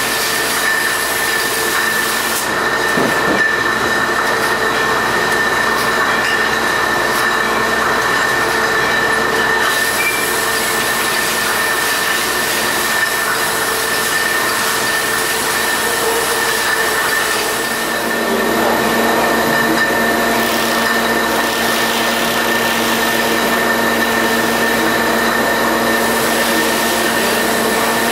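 ALTEC PVN 20/6 monoblock rotary filler and roll-on capper running steadily, filling glass spirits bottles: a continuous mechanical running noise with a steady high whine over it. Its tone shifts slightly about two-thirds of the way through.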